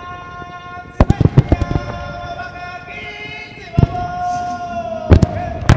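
Aerial firework shells bursting in sharp, loud reports over music with long held notes: a quick cluster about a second in, a single burst near four seconds, then several more near the end.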